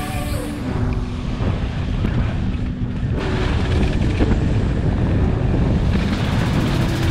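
Background music with sustained low notes over a heavy low rumble of wind buffeting the microphone at skiing speed.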